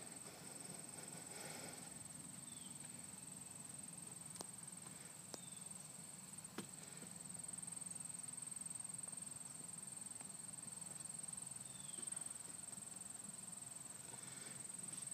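Faint open-field ambience: a steady high-pitched drone, with a few light clicks and a couple of short falling chirps.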